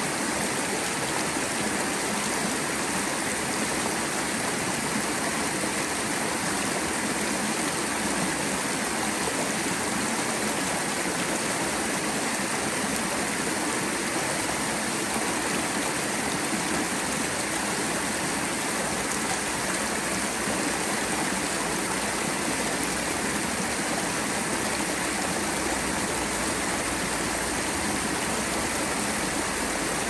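Mountain valley stream running over rocks: a steady, even rush of flowing and splashing water.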